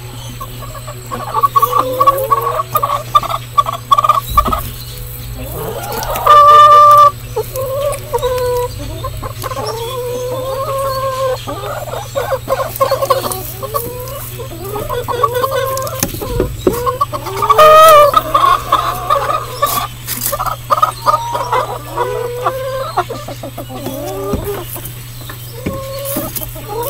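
Domestic hens clucking in runs of short calls, with two loud, drawn-out calls, about six seconds in and again about eighteen seconds in.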